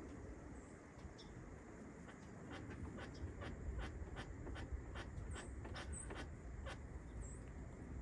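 Screws being driven into a door trim panel by hand: a run of irregular light clicks and scratches over a low handling rumble. Faint bird chirps can be heard too.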